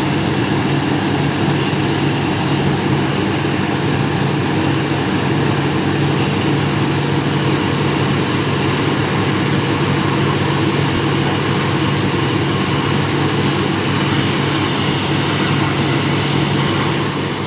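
Borewell drilling rig running: a loud, steady engine drone with a constant low hum.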